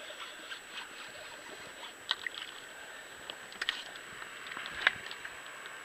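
Water lapping against the hull of a small fishing boat, with a few sharp clicks and knocks from handling the rod and boat; the loudest click comes near the end.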